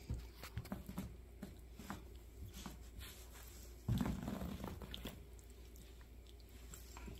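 Faint scuffling with small biting and chewing sounds as a tabby kitten gnaws at a lying dog's ear and collar, with a short, louder low sound about four seconds in.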